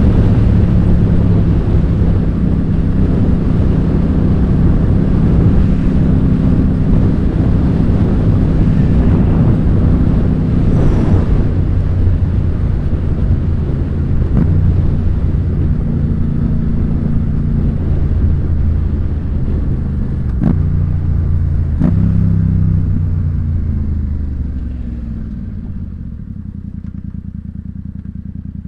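Yamaha FZ-07 (MT-07) parallel-twin running through an Ixil L3XB aftermarket exhaust while being ridden: a steady engine note, with two short breaks about 20 and 22 seconds in, then the revs fall away and it settles to a quieter, steady idle near the end.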